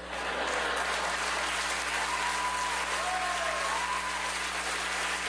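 Audience applauding steadily after a punchline, with a voice in the crowd calling out faintly about two seconds in.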